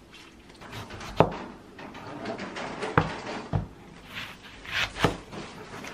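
Kitchen prep sounds: four or five separate sharp knocks and clatters with some rustling, including a kitchen knife cutting a peeled onion on a cutting board.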